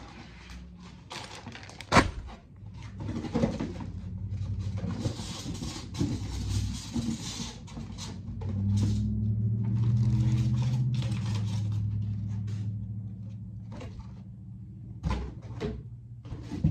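Cardboard box and packaging being handled and pulled apart: sharp knocks, with a loud one about two seconds in, and scraping, rustling handling noise. A steady low hum swells and fades in the middle.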